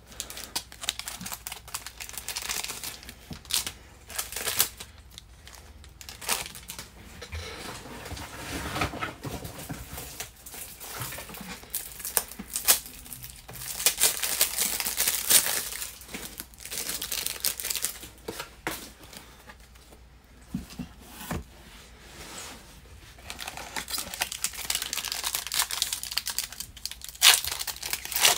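Plastic card sleeves and a foil trading-card pack wrapper being handled and torn open: irregular crinkling and tearing in bursts, loudest near the end.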